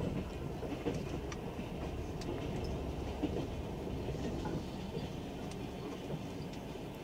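Steady low rumble of a passenger train running at speed through a station, with scattered sharp wheel clicks over rail joints and points. A freight train of open wagons passes on the next track.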